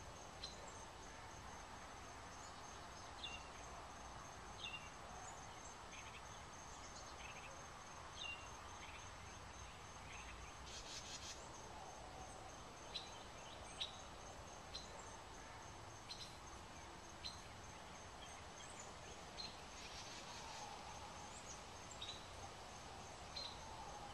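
Faint outdoor ambience: short bird chirps scattered every second or two over a low steady background noise, with a constant high-pitched trill.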